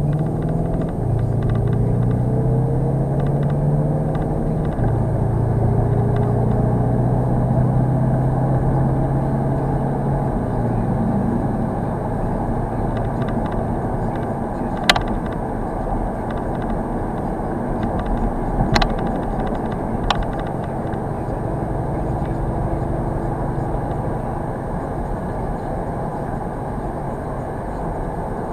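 Skoda Octavia RS's 2.0 TDI diesel engine heard from inside the cabin while accelerating, its hum dropping in pitch at gear changes about one, five and ten seconds in, then settling into steady cruising with tyre and road noise. Three sharp clicks come in the middle.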